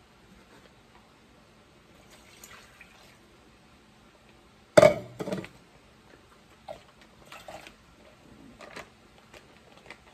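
Water and grated cassava splashing out of a plastic pouch into a glass mixing bowl as the pouch is rinsed out. The loudest splash comes suddenly about five seconds in, with a second just after and smaller splashes near the end.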